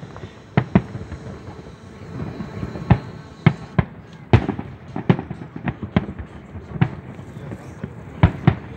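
Fireworks aerial shells bursting overhead: a dozen or more sharp bangs at irregular intervals, sparse at first and coming closer together from about three seconds in.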